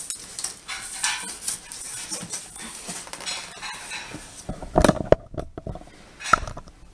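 Cardboard TV box being handled and its flaps pulled open: rustling and scraping of cardboard, with a few louder thumps against the box in the second half.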